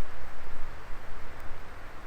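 Wood fire burning in a Coleman Fire Disk fire pit: a steady rushing hiss of flames with one faint crackle.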